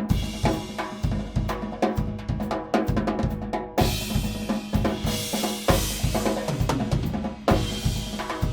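Acoustic drum kit played in a fast solo: rapid bass drum and snare strokes, with cymbals ringing out through the middle few seconds and a cymbal crash near the end.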